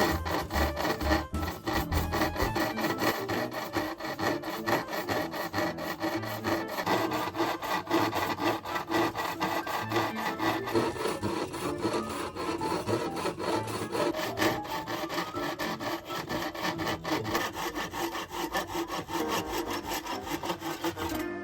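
Hand saw cutting through a hard oak board in quick, even back-and-forth strokes.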